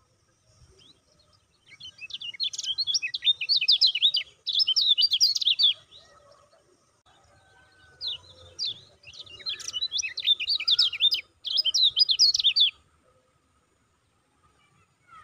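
A caged white-eye (kecial kuning) singing two bouts of rapid, high chattering notes in the 'ciak-ciak' style, each a few seconds long. The first starts about two seconds in and the second about eight seconds in.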